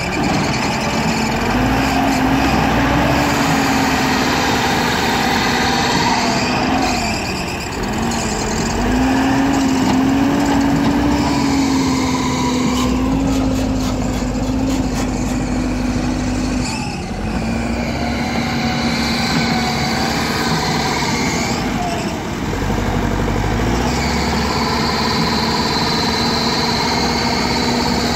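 JCB 3DX backhoe loader's diesel engine running hard as the front loader works, its revs rising and falling, with a higher whine that follows the revs. The revs sag and pick up again three times, and there is a short spell of clicking and rattling about halfway through.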